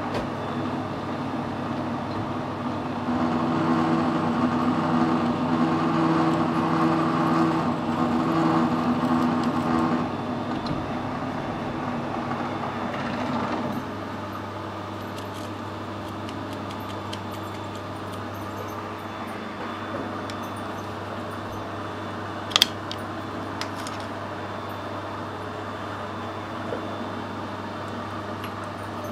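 Small metal lathe running with its three-jaw chuck spinning, turning cast iron, louder for several seconds in the first half, then switched off about halfway through. Afterwards a steady low hum remains, with one sharp click a little later.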